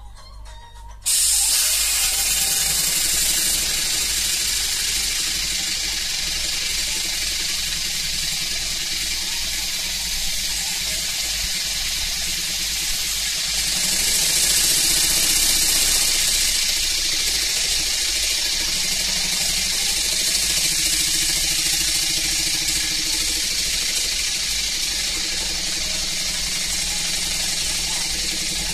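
Stuart S50 model mill engine running on compressed air fed by hand from an air gun: a loud, steady hiss of air that starts suddenly about a second in, with the engine's mechanical running underneath.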